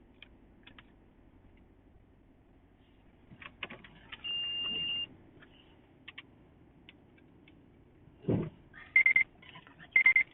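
Light clicks and taps of small tools on a laptop, a dull knock about eight seconds in, then two short high-pitched whirs about a second apart, fitting a small electric precision screwdriver driving screws. A brief steady high tone sounds about four seconds in.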